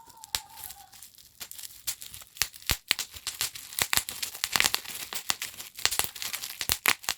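Gift wrapping being unwrapped by hand: crinkling and tearing with many irregular sharp crackles.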